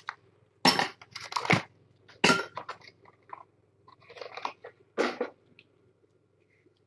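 A kitten chewing wet cat food in irregular bursts, which stop about five and a half seconds in.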